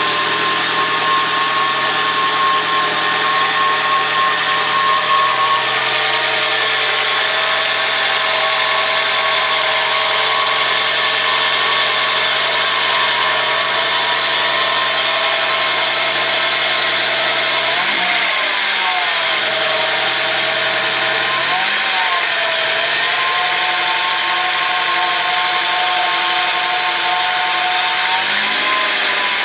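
Chevrolet Kadett GSI engine running at a steady speed, with a steady whine over it, which the owner calls a strange noise. The engine speed shifts briefly three times, about two-thirds of the way through, a few seconds later, and near the end.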